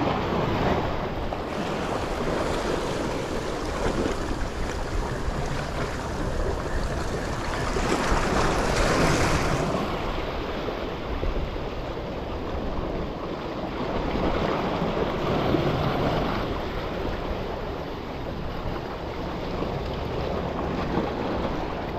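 Sea surf washing against shoreline rocks, rising and falling in slow swells, with wind buffeting the microphone.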